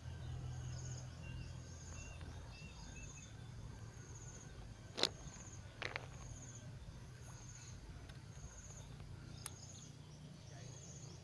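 An insect calling in short high trills repeated about once a second over a low steady hum. About five seconds in comes a sharp snap, the loudest sound, and a second sharp knock just under a second later, as a crankbait is cast from a baitcasting rod and lands in the water.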